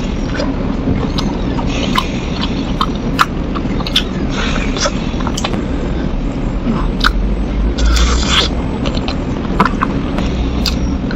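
Close-up eating sounds of spicy braised chicken feet: wet chewing, sucking and lip smacks, with many sharp little clicks as skin and small bones are pulled apart and chewed. A couple of longer wet sucking bursts come about four and eight seconds in, over a steady low background rumble.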